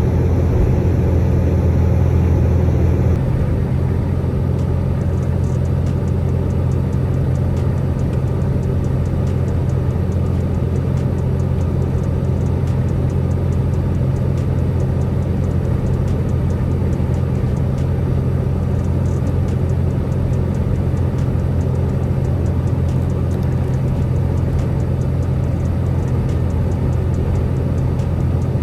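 Steady low rumble of a semi-truck's engine and road noise while driving at speed.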